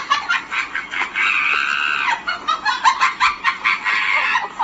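Chicken clucking: a fast run of short clucks, with one longer held call about a second in.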